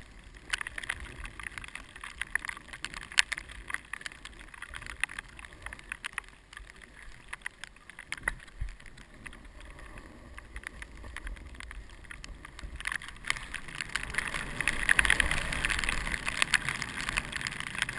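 Skiing gear hissing and scraping over packed snow during a downhill run, with wind on the helmet-mounted microphone and scattered sharp knocks. It grows louder and rougher in the last few seconds as speed picks up.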